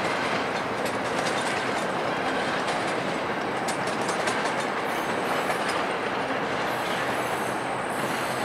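Steel wheels of departing VIA Rail passenger coaches clicking and clattering over rail joints and switches, over a steady rolling rumble.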